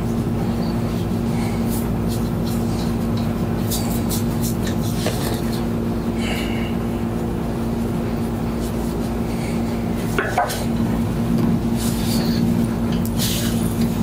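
A steady low hum throughout, with short rustles and scrapes of hands pressing and rubbing over a cotton T-shirt on the back and shoulders, the clearest about ten seconds in and near the end.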